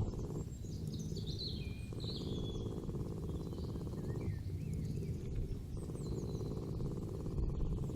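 Countryside ambience: birds chirping and twittering in short high calls, several in the first few seconds and more near the end, over a steady low background noise.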